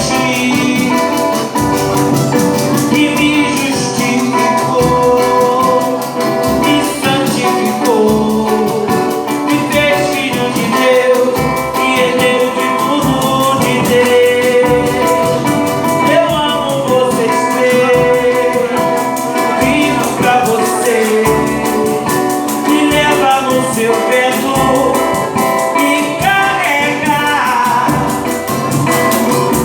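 Gospel group singing with instrumental accompaniment over a steady, even beat.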